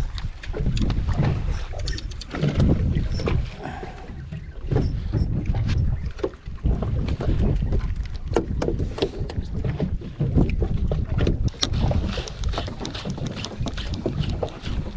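Wind buffeting the microphone on a small open fishing boat at sea, a fluctuating low rumble, with water against the hull and many small clicks and knocks scattered throughout.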